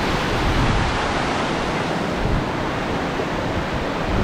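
Steady rushing roar of a waterfall, with wind buffeting the microphone.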